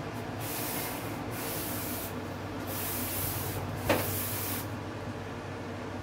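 Polystyrene foam box being turned and slid by hand on a metal tabletop: three stretches of scraping hiss, with a sharp knock just before the four-second mark.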